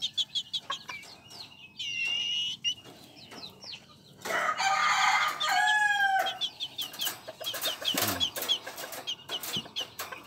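Japanese bantam rooster crowing once, a call of about two seconds that starts about four seconds in, with quick high chirps around it.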